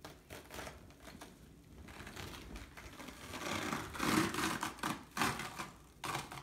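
Self-adhering elastic bandage being stretched off its roll and wrapped around a leg amputation stump, crackling and rustling as the stuck layers pull apart, loudest between about three and a half and five and a half seconds in.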